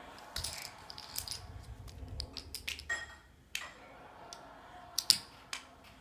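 Plastic poker chips clicking and clattering as a toddler tosses and handles them: a scattering of sharp, irregular clicks, the loudest pair about five seconds in.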